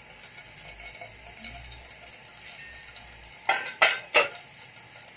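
Popcorn kernels in hot corn oil in a covered pan: a faint steady sizzle, then three sharp pops in quick succession about three and a half seconds in as the first kernels burst.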